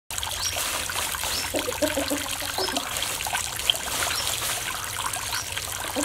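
Water trickling and splattering steadily as it spills in thin streams over the rims of a small plastic tiered fountain into the tray below.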